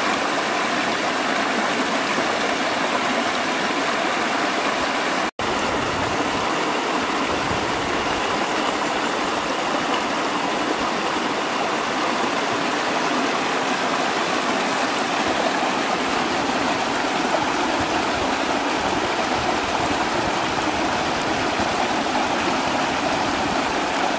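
Small rocky stream rushing and splashing over stones in a steady, loud flow, with a momentary drop-out about five seconds in.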